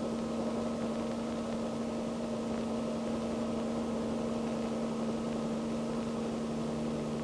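Helicopter engine running as a steady drone with a constant low hum, heard through the worn soundtrack of an old film.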